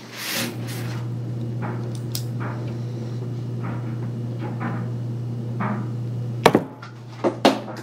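Metal clicks and clacks of a small green-handled folding knife being flipped open and shut in the hand, scattered through, with a few sharper, louder clacks near the end. Underneath, a steady low hum runs until near the end.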